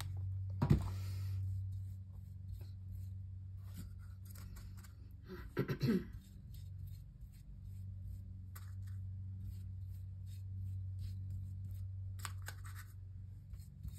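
Flat paintbrush scratching back and forth across a tile coaster in many short strokes, laying on a base coat of pastel acrylic paint, over a steady low hum. Two brief louder sounds come near the start and about six seconds in.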